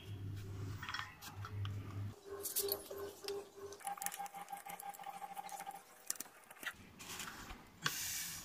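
Irregular metallic clicks and light knocks of hand tools and parts on a scooter's wheel axle, with a louder scrape near the end.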